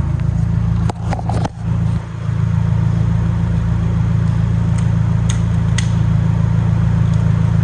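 Nissan 240SX's swapped SR20DET turbo four-cylinder engine idling with a steady low hum. There are a few sharp clicks and a brief drop in level about a second in.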